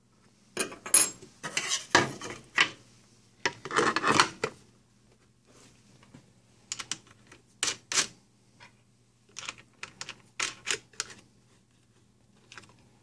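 Greenworks 80V chainsaw's plastic side cover being set over the bar and its metal bar nuts and washers started by hand: a run of clattering knocks and rattles in the first few seconds, then scattered sharp clicks and metal clinks.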